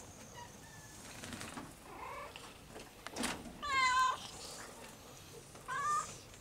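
Domestic cat meowing twice: a long, wavering meow about four seconds in, the loudest sound, and a shorter one shortly before the end.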